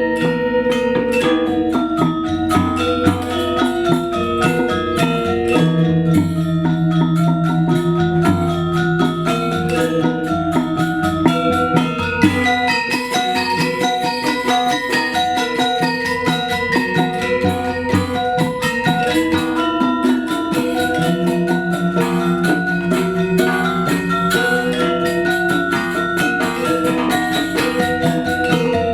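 Balinese gamelan playing for the Legong dance: bronze metallophones ring out dense, fast interlocking melodic figures over a steady rhythm.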